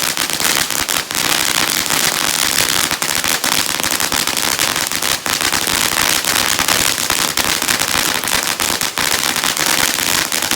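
Unicorn Fountain ground firework spraying, a continuous hiss packed with many small crackling pops.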